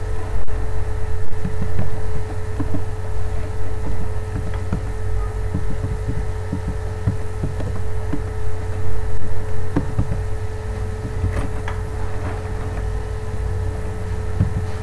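Steady low electrical hum and rumble with a constant mid-pitched tone above it, broken by faint, irregular short clicks.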